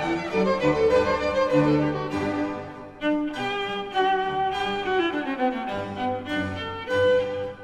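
Instrumental background music, a melody of held notes that change every half second or so.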